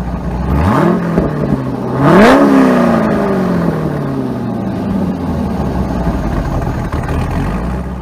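Car engine revved twice in quick succession, the second blip higher and louder, then the revs falling slowly back to a steady idle.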